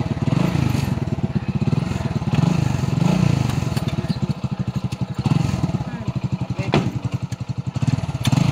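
Motorcycle engine idling with a steady, rapid low pulse, under people talking. A single sharp click comes about two-thirds of the way through.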